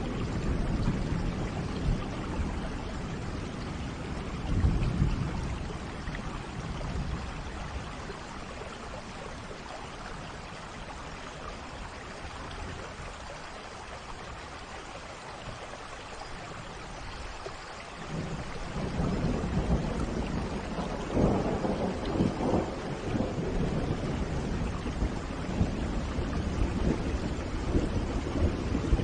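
Rain falling steadily with rolling thunder: a rumble near the start, quieter rain through the middle, then the thunder picks up again about two-thirds of the way through and keeps rumbling.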